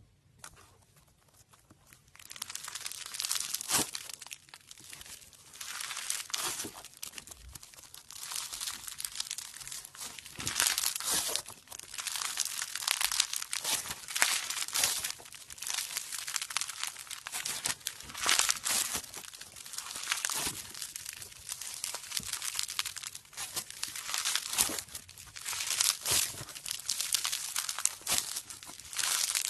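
Floam, slime packed with tiny foam beads, squeezed and kneaded by hand, crackling and popping densely. It starts about two seconds in and comes in uneven swells.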